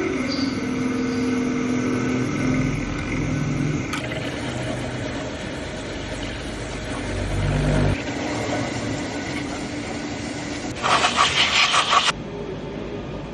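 Workshop machine tool running with a steady mechanical hum that changes pitch a couple of times, then a short rapid rattle of about six quick pulses near the end.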